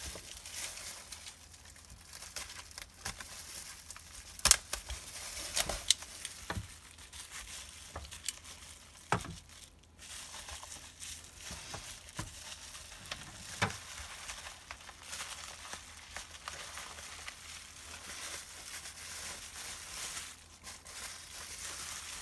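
Plastic bubble wrap and packing crinkling and rustling as it is handled, with a few sharp clicks and knocks among it.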